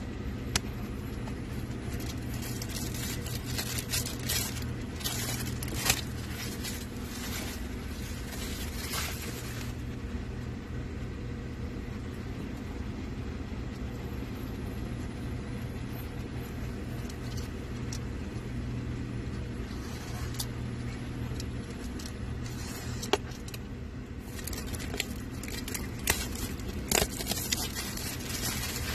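Hands handling a tablet, its cardboard box and plastic wrapping: scattered clicks, taps and rustles over a steady low hum.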